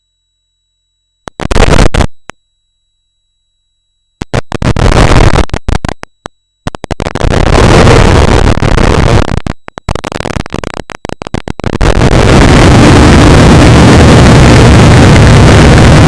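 An engine catches in several short loud bursts with gaps between them, then settles into steady running for the last few seconds.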